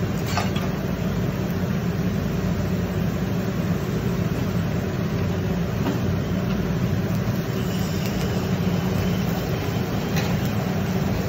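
Steady low hum of a teppanyaki grill's exhaust hood fan, with an even hiss over it and a few faint clicks.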